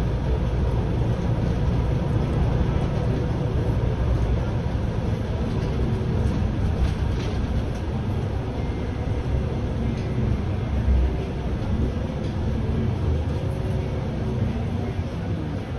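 MAN Lion's City A21 city bus heard from the cab, running with a steady low rumble of engine, drivetrain and road. A couple of light knocks come through, the clearest about eleven seconds in.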